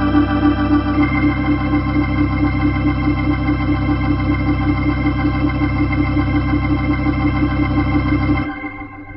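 Hammond B3 organ holding a full, wavering chord over pedal bass, the voicing shifting about a second in. The chord is released about eight and a half seconds in, leaving a short fading tail.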